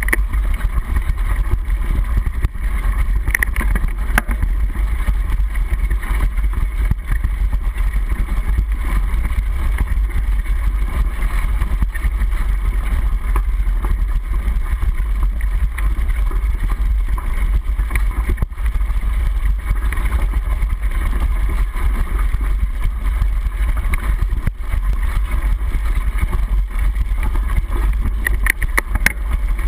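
Mountain bike riding fast over a rough dirt trail, heard through a handlebar-mounted action camera's waterproof housing: a loud, steady low rumble of wind and trail vibration, with many small knocks and rattles from the bike over bumps.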